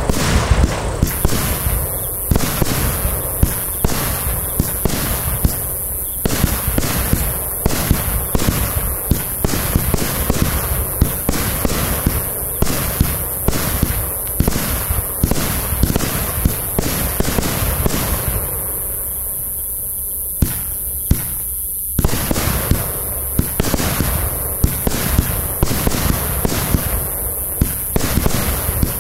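Zapał IC25-64-2 25 mm compound fireworks cake firing shot after shot: launch thumps and sharp bursts of the stars overhead, about two a second. A short thinner spell comes a little past halfway, then the shots pick up again.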